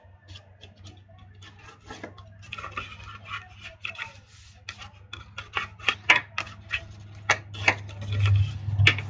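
Bone folder rubbing and pressing along the score lines of cardstock, with paper scraping and many short ticks and taps that come thicker in the second half.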